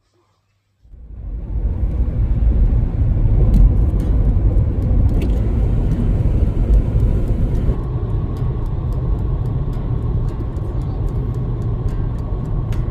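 Car driving on a highway, heard from inside the cabin: a steady low rumble of road and wind noise that starts about a second in. A faint steady whine joins about halfway through.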